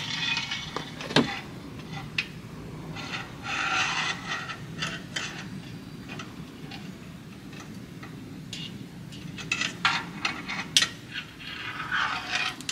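A magnet-tipped screwdriver scraping and clicking against metal while it picks out loose metal chips. The scrapes and sharp clicks come in short spells: at the start, around a third of the way in, and again near the end.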